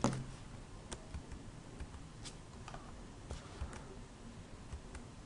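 Faint, scattered computer keyboard keystrokes and clicks, about half a dozen spread out, the sharpest right at the start, as a number is typed into a field.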